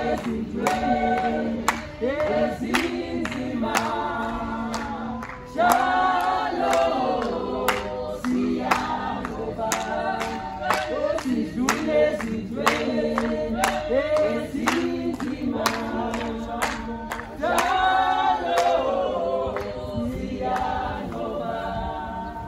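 A group singing a cappella, a traditional Xhosa ceremonial song, with steady rhythmic hand claps keeping the beat.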